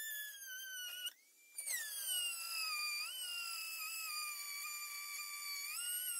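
Corded handheld rotary tool cutting through the plastic front cowl of a Club Car Tempo golf cart: a high-pitched whine that cuts out briefly about a second in, comes back higher, then sinks slowly in pitch as the bit bites into the plastic, rising a little twice.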